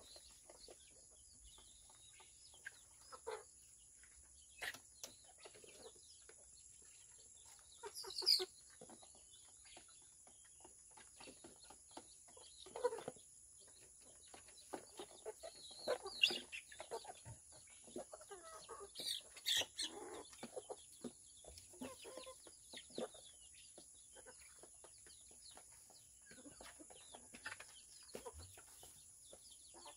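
Native chickens clucking softly now and then, in short scattered calls. One louder call comes about eight seconds in, and a cluster of them between sixteen and twenty seconds in.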